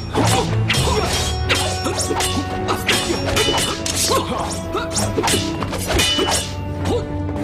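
Fight-scene sound effects: a rapid run of whacks, strikes and crashes over dramatic background music.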